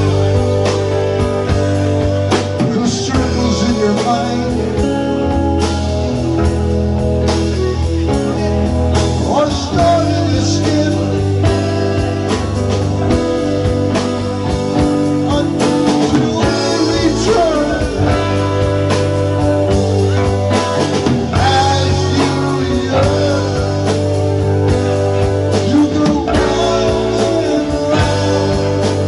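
Live rock band playing: electric guitar, electric bass, a Nord Electro keyboard and a drum kit, with a male voice singing over the band.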